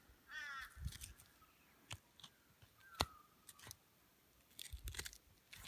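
A bird calls once, about half a second in. Scattered clicks and small scrapes come from a knife working the backstrap free along a deer's backbone, with the sharpest click about three seconds in and a quick run of them near the end.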